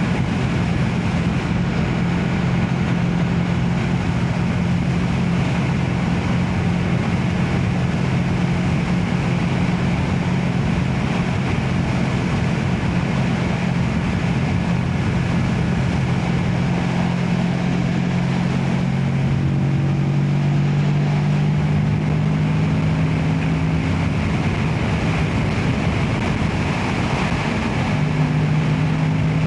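Motorcycle engine running at a steady cruising speed, with wind and road noise over it. The engine note creeps up in pitch in the last third and dips briefly near the end before steadying again.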